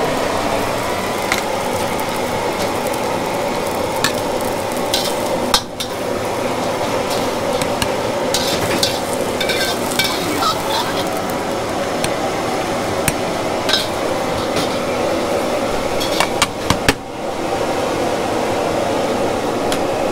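A steady hissing kitchen din with frequent clinks and clatters of dishes and utensils, and a few sharper knocks about five seconds in and again near the end.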